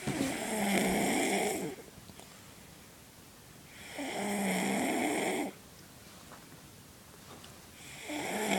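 A woman snoring loudly: three long snores about four seconds apart, each lasting about a second and a half, the third starting near the end.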